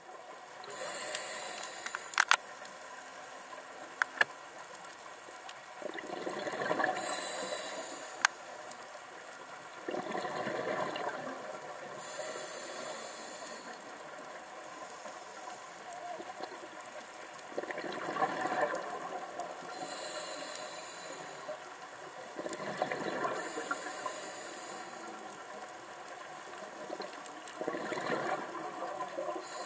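Scuba diver breathing through a regulator underwater: a hiss on each inhalation and a surge of bubbling on each exhalation, repeating about every five seconds. A few sharp clicks come in the first several seconds.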